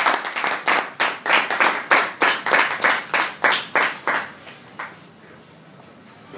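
Hand clapping, about four claps a second, that stops a little after four seconds in, with one last clap near five seconds.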